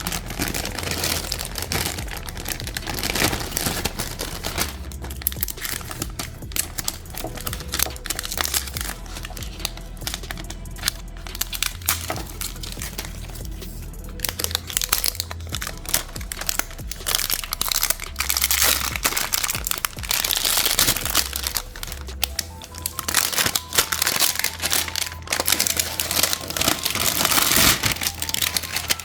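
Packaging crinkling and rustling in bursts as a laptop is unwrapped from its box, over steady background music.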